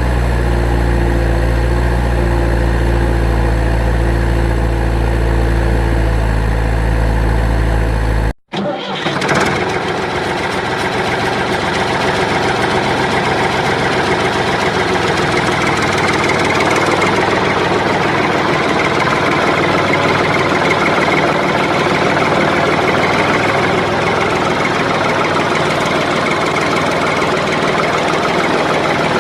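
A motor running steadily, with a low hum that cuts off abruptly about eight seconds in, replaced by a noisier, higher running sound.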